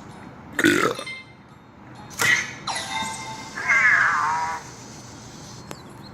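Anki Cozmo toy robot making its electronic voice noises: two short squawks, then a held buzzy tone and a wobbling warble that falls in pitch.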